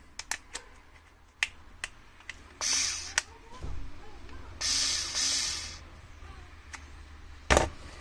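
Hard plastic clicks and scraping as an accessory head is pushed onto and handled on a Parkside PAS 4 C4 cordless screwdriver. Scattered sharp clicks come with two short rasping stretches, and there is a louder knock near the end.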